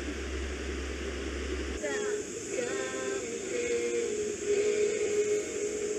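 A steady low hum with hiss, which changes suddenly about two seconds in to a voice singing with long held notes over a steady high hiss.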